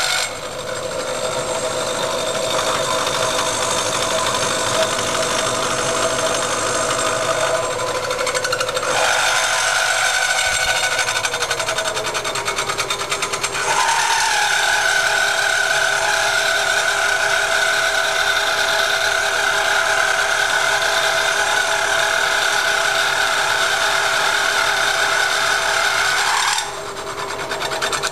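Milling machine cutter machining the aluminium main bearing bosses of a Porsche 911 engine case, a steady whine of several tones as it tapers them for a boat-tail modification. The tone shifts about nine seconds in, the cut gets louder from about fourteen seconds, and it eases a little before the end.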